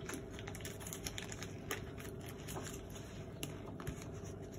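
Paper wrapper being peeled off a stick of butter: light, irregular rustles and small clicks.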